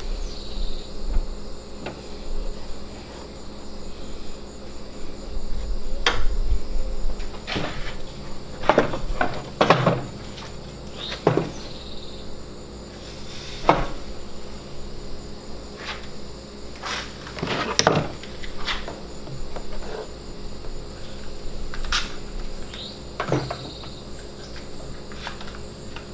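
Scattered knocks and clunks of wooden jig pieces being set down and shifted into place on a table saw sled, with a steady high insect chirring in the background.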